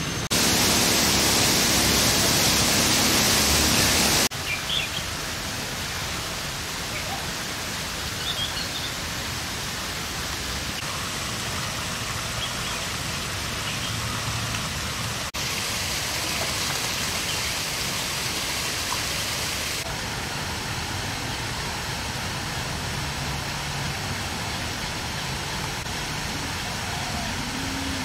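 Steady rushing hiss, loudest in the first four seconds and shifting in level at a few cuts, with a few faint high chirps.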